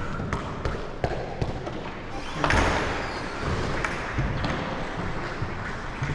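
Paddleball rally: the ball smacking off paddles and court walls, a string of sharp knocks, with a louder, longer burst of noise about two and a half seconds in.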